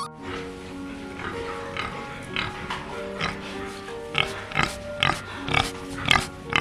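Pig grunting in short repeated calls that come faster and louder in the second half, over light background music with held notes.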